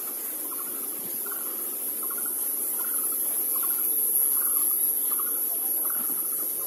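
An animal's short trilled call, repeated about one and a half times a second, over a steady high hiss.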